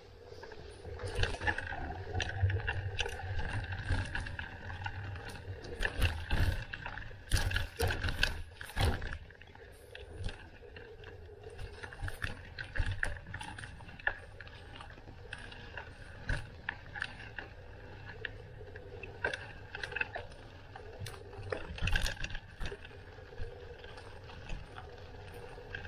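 Bicycle in motion: rattles and many sharp knocks from the bike as it rolls over an uneven surface, busiest from about six to nine seconds in, over a steady low rumble.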